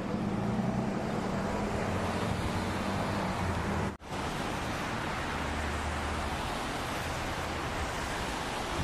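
Steady street ambience: a low idling-engine hum under an even hiss. The sound cuts out for an instant about four seconds in, and after that the hum sits lower.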